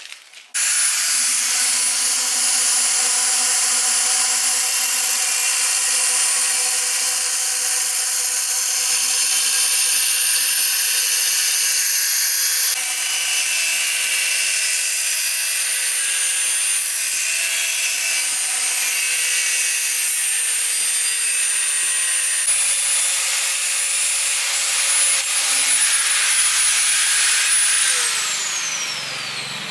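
An electric power tool runs continuously at speed with a steady high motor whine over a loud grinding noise. The whine falls in pitch as the tool winds down near the end.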